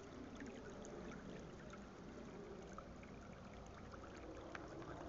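Faint, steady outdoor background hiss with scattered small ticks and short chirps.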